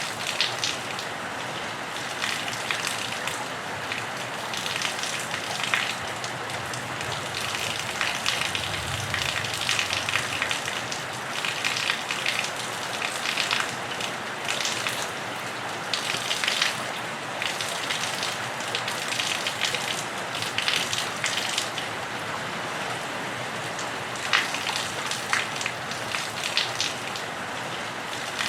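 Steady rain falling on a roof and running off it, a constant wash with frequent sharp spatters and drips.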